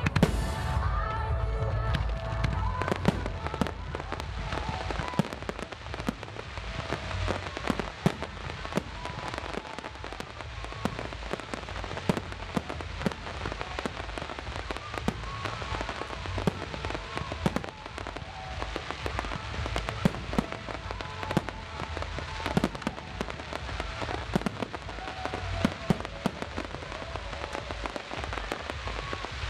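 Aerial firework shells bursting in quick succession: sharp bangs and dense crackling over a continuous low rumble.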